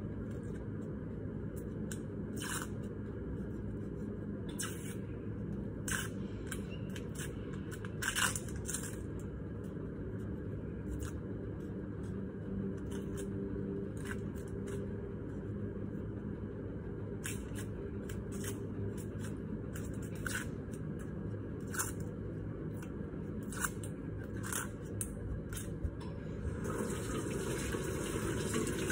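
Kitchen knife scraping and picking the dry skin off an onion: short, scratchy clicks at irregular intervals over a steady low background hum. Near the end a tap is turned on and water runs into the sink as the onion and knife are rinsed.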